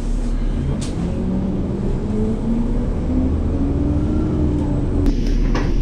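City bus running, heard from inside the cabin: a steady low drivetrain rumble with a whine that rises in pitch as the bus picks up speed. A couple of sharp rattles near the end.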